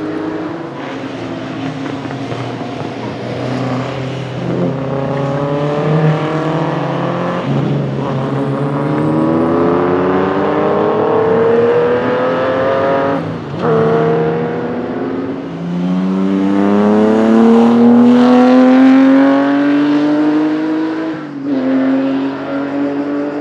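Ferrari 250 GTO's V12 racing engine under hard acceleration, its pitch climbing steadily in long pulls. Each pull is cut by a sharp drop at an upshift, about four times.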